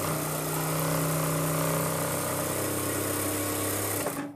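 ZOJE industrial lockstitch sewing machine running at its top set speed of 4000 stitches per minute, sewing through fabric with a steady, unchanging pitch. It stops suddenly about four seconds in.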